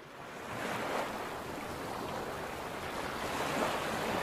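Steady rush of waves and wind, fading in over the first half second.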